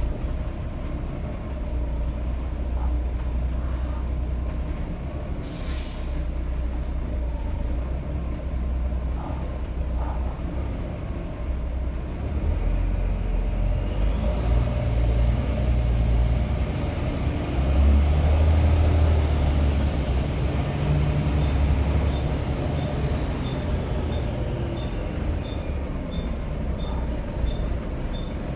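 Volvo B7TL double-decker bus's turbocharged diesel engine pulling under load. About halfway through, its turbocharger whistle rises to a high whine, then falls away a few seconds later. Near the end a regular ticking, about once a second, runs over the engine.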